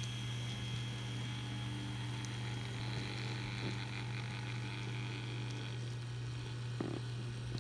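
N scale model train with its locomotives rolling past on the track: a steady low hum, with a faint higher whir in the middle as the locomotives go by. A single short click comes near the end.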